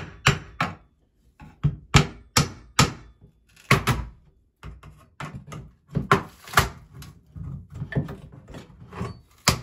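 Claw hammer striking a flat pry bar to drive it under a vanity backsplash: over a dozen sharp knocks in irregular bunches, some close together, with brief pauses between the groups.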